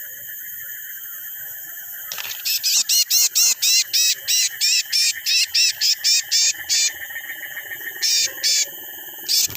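A steady, high, multi-toned drone of night insects. About two seconds in, an animal breaks in with a fast series of loud, sharp chirping calls, about four a second, which stops around seven seconds in; three more calls come near the end.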